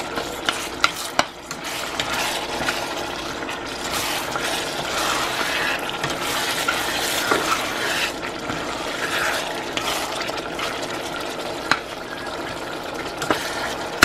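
A metal slotted spoon stirring a fish stew in red sauce in a stainless steel pot: a steady wet stirring sound, with sharp clicks now and then where the spoon knocks against the pot.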